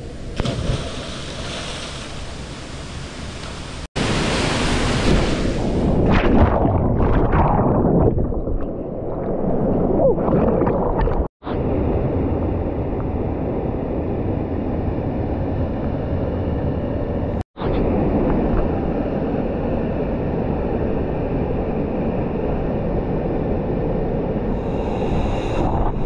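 Rushing water of a waterfall and stream: a steady, noisy wash that changes character at each cut between shots.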